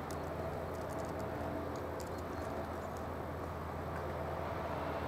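Faint steady low hum of background noise, with scattered light ticks in the first couple of seconds.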